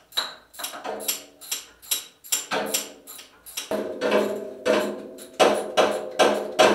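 Background music with a quick, even percussive beat; a sustained pitched part comes in a few seconds in and grows louder.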